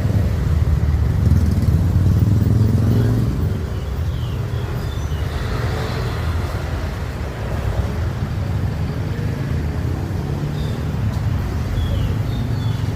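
Street traffic: a vehicle's engine rumble, loudest for about the first three seconds, then easing to a steadier traffic hum.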